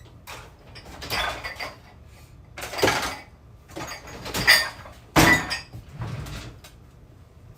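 Kitchen clatter: cupboard doors and drawers opening and closing and cookware being handled, in about five short bursts.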